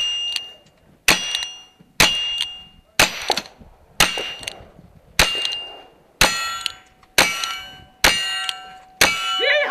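A pair of .22 rimfire Ruger Single Six revolvers fired about ten times, roughly one shot a second. Each hit rings out on a steel target.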